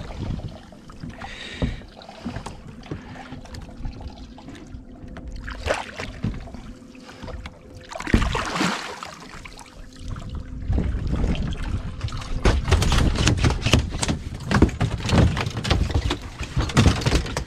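A small tope shark splashing in the water beside a boat as it is led in on the wire and gripped by the tail. From about two-thirds of the way through, repeated loud thumps and knocks come as it is landed and thrashes on the boat's deck.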